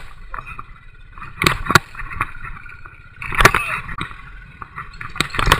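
Royal Enfield single-cylinder motorcycle engine running at low speed on a rough gravel climb, a steady low rumble. Louder bursts of noise cut in three times: about a second and a half in, in the middle, and near the end.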